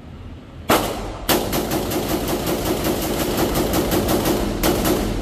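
Gunfire at a shooting range: one shot, then after a short pause a fast string of shots at about eight a second for some three seconds, with a few more shots near the end.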